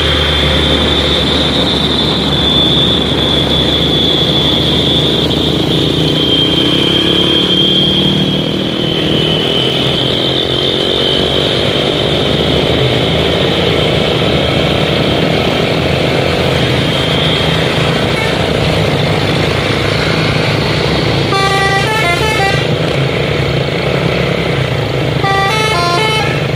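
Heavy Hino 500 truck diesel engines running steadily under load on a steep climb. Near the end a multi-note air horn sounds twice in short, stepping bursts.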